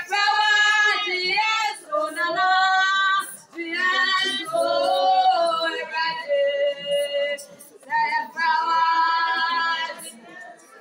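A woman singing a worship song in long held phrases with short pauses between them.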